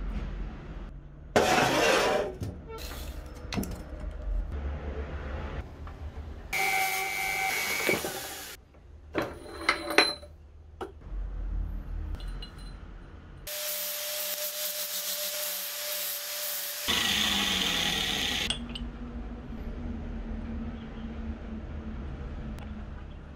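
A string of short workshop sounds: steel pipe and a pipe reducer fitting handled on a steel bench, with clicks and clinks of metal on metal. Between them come several sudden bursts of hissing machine noise, the longest, with a steady tone in it, from about 13 to 18 seconds in.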